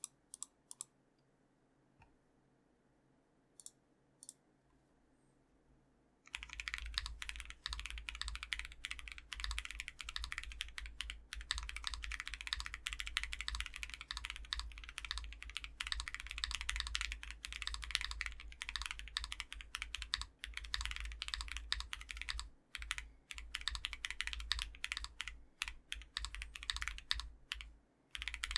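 Typing on a Tiger 80 gasket-mounted mechanical keyboard with a polycarbonate plate, lubed Blue Penguin switches and PBT keycaps: a few single keystrokes, then fast continuous typing from about six seconds in, with a deep sound.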